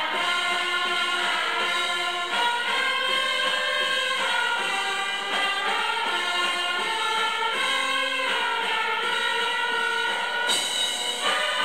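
A hymn sung during Mass, with long held chords that move to new notes every one to three seconds.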